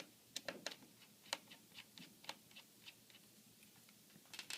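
Small, irregular clicks and ticks of a screwdriver backing out the laptop's display screws and the tiny screws being handled.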